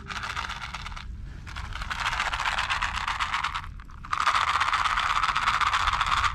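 Fur rubbing close against the camera's microphone in three rustling bursts, the longest two lasting about two seconds each: a cat rubbing itself against the camera.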